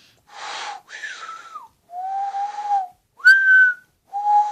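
Cupped-hand whistle: breath blown through a small hole between cupped hands, giving five breathy hooting notes, some held steady at a low pitch and others sliding up or down to a higher one.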